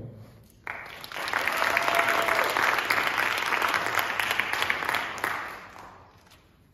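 Audience applauding, starting abruptly about a second in, then fading out over the last second or two.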